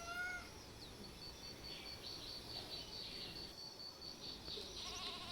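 A cat's meow trails off within the first half second. Then a high insect trill, pulsing evenly about four or five times a second, runs for about four seconds over a steady hiss of rain.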